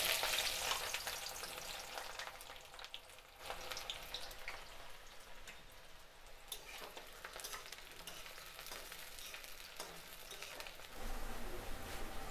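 Sliced onions hitting hot oil in a kadai: a sudden loud sizzle that settles into steady frying with scattered crackles, picking up again about three and a half seconds in.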